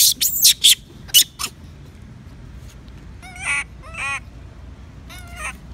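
Baby long-tailed macaque crying: a quick run of loud, shrill shrieks in the first second and a half, then three shorter wavering cries about a second apart.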